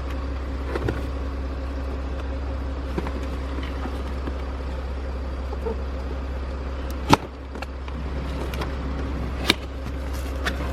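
Packaging being handled as a new water pump is unpacked: light rustling and clicks over a steady low hum, with two sharp knocks, about seven seconds in and again two seconds later.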